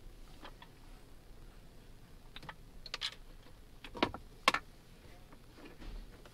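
Scattered light plastic clicks and taps from oscilloscope test leads and probe ends being handled and fitted, the two loudest about four seconds in, half a second apart.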